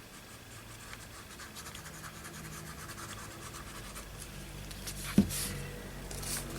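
Paper being handled and rubbed on a tabletop as a piece is placed and pressed onto a journal page: soft scratchy rubbing and rustling, with one sharp tap about five seconds in.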